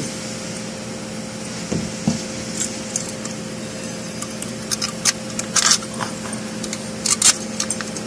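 Short metallic clicks and scrapes of small bolts being handled and set by hand into an automatic transmission's control module and valve body, coming in scattered clusters over the second half, over a steady background hum.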